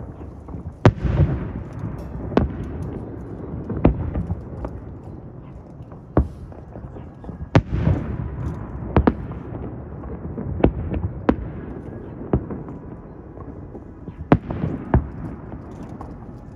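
Aerial fireworks shells bursting overhead: a string of sharp booms at irregular intervals, some in quick pairs, each trailing off in a low rumble.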